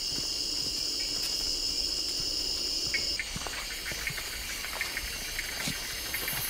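Forest insects chirring in a steady high drone that stops about three seconds in, followed by light crackling of footsteps on dry leaf litter.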